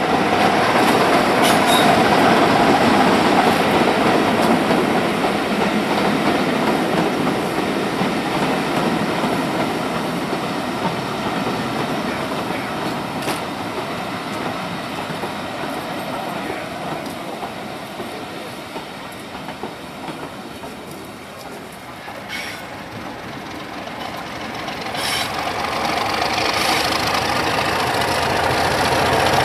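A diesel-hauled train of passenger coaches passing, its wheels clattering over the rail joints, the sound fading away over about twenty seconds. Near the end a Class 31 diesel locomotive approaches and its engine grows louder.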